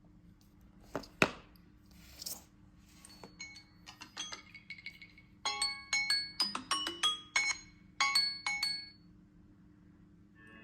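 Smartphone alarm tone playing a melody of bright, glassy chime notes like a glockenspiel. The notes start faint about three seconds in, grow louder from about five seconds in, and stop near nine seconds. Two sharp clicks come about a second in, the second being the loudest sound.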